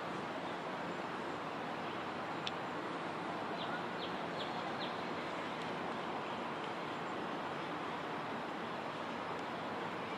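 Steady open-air background noise, an even hiss with no clear single source, with one short click about two and a half seconds in and then four quick faint high chirps around four seconds in.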